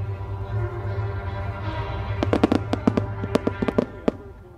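Firework shells bursting in quick volleys, a few sharp bangs at the start and a dense run of them from about two seconds in, over steady music played with the display.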